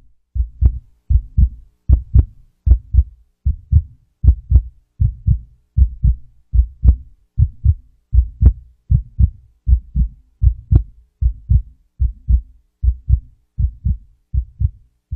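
Heartbeat: a steady run of low double thumps (lub-dub), a little more than one beat a second.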